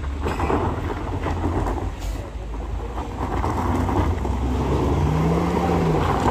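A motor vehicle's engine working up a steep climb. Its pitch rises about four and a half seconds in, holds, then drops just before the end, and the sound grows louder as it comes closer.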